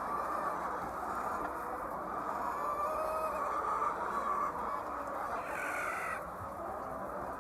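A large flock of laying hens clucking and calling all at once, a dense steady chatter. A few longer calls stand out above it, and one higher call rises and stops abruptly about six seconds in.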